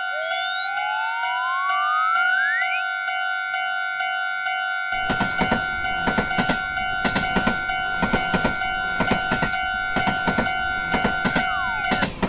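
Cartoon railroad-crossing warning signal sounding as a steady two-pitch electronic tone, with a pitch sliding upward over the first few seconds. From about five seconds in, a train's rapid, even wheel clatter runs over it. Near the end a pitch slides down and the sound cuts off.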